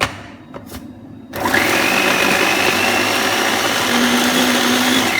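A click, then an electric blender switches on about a second in and runs steadily at full speed, with a faint high whine, puréeing chopped peaches.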